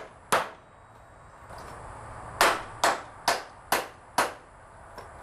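Hammer driving nails into 2x4 studs: two sharp blows near the start, then after a pause a run of five evenly spaced blows, about two a second.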